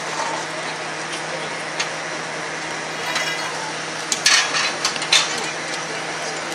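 Metal clanks and knocks as Willys Jeep parts and wheels are handled and fitted by hand, a few sharp ones clustered about four to five seconds in, over a steady murmur of onlookers.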